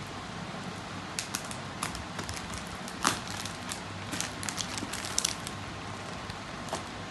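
Scissors snipping into a plastic courier bag, the plastic crinkling and crackling in irregular sharp clicks, one louder snap a few seconds in.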